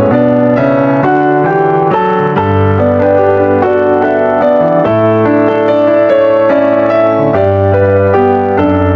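Piano music: a line of notes changing several times a second over held low bass notes.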